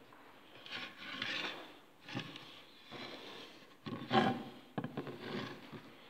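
Several bursts of rubbing and scraping, the loudest a little before the last second and a half.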